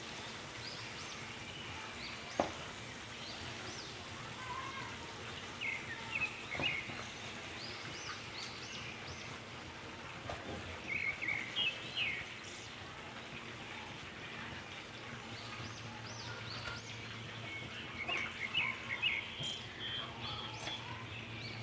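Metal kitchen tongs clicking now and then as fried chicken pieces are lifted out of a pan of oil, over a low steady background with scattered short high chirps.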